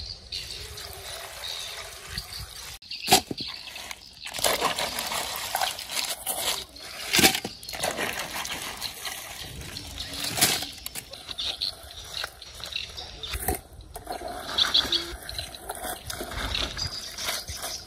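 Live blue swimmer crabs clattering and scraping against one another and the sides of an aluminium pot and plastic basin as they are handled, with sharp knocks now and then. Near the end, water sloshing as crabs are scooped out of the basin with a plastic colander.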